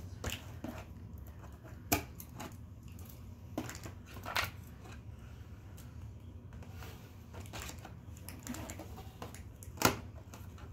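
Scattered light clicks and taps from small plastic toy pieces being handled and snapped shut, a few sharper knocks among them, over a faint steady low hum.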